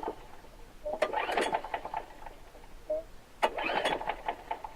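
Craftsman walk-behind lawn mower being pull-started twice, about two seconds apart: each yank of the recoil starter cord spins the engine over for about a second without it catching. A hot-restart failure after a short run, which the owner suspects is vapor lock.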